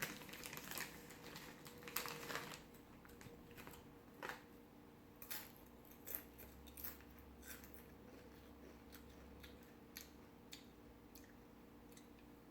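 Faint crunching of a potato chip being bitten and chewed, busiest in the first couple of seconds and then sparse, scattered crunches.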